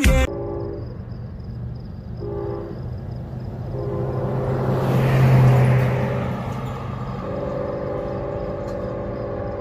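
Air horn of an approaching Union Pacific freight locomotive, several notes sounding together as one chord, blown as two short blasts and then two long ones. A vehicle swells past in the middle.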